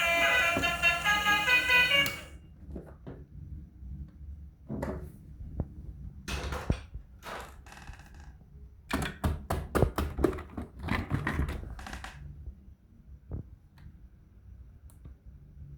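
A short melodic tune breaks off about two seconds in. Scattered knocks, clicks and thunks follow, from plastic toy vehicles being handled; they are busiest past the middle and thin out to faint ticks near the end.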